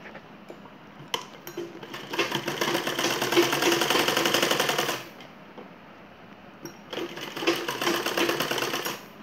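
Domestic straight-stitch sewing machine stitching a shoulder seam in two runs with a fast, even rhythm, about four seconds and then about two seconds, with a pause between. A couple of sharp clicks come just before the first run.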